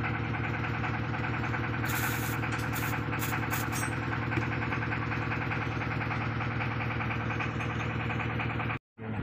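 An engine running steadily at idle, with a few light metallic clicks about two to four seconds in; the drone breaks off suddenly near the end.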